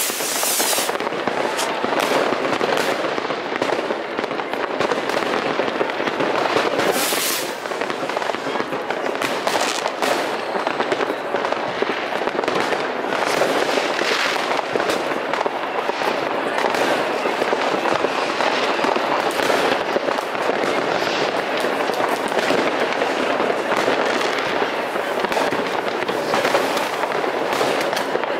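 Many fireworks rockets and firecrackers going off at once: a continuous crackle of overlapping bangs with no pause. Two brief sharp hisses stand out, one at the start and one about seven seconds in.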